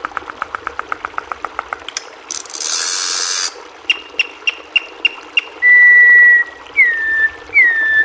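Campo troupial (currupião) singing: a fast run of short clicking notes, then a harsh buzzy burst, then clear whistled notes, ending with a long steady whistle and two falling whistles.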